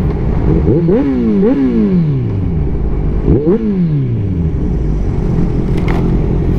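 Kawasaki Z1000's inline-four engine through its aftermarket exhaust while riding: it revs up about a second in with a quick gear change, then its pitch falls away slowly as the bike slows. A short throttle blip comes near three and a half seconds in, then it settles into a low, steady run.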